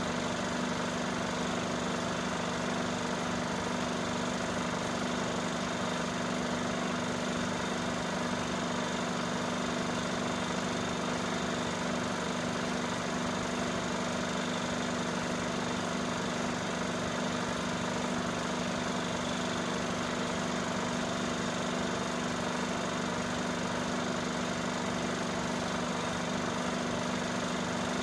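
Cine film projector running steadily: an even motor hum with the fast, regular chatter of the film moving through the gate, unchanged throughout.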